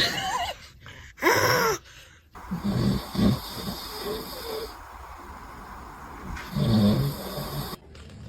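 A man snoring in irregular, rough snorts. A short high-pitched vocal sound with a falling pitch comes about a second in.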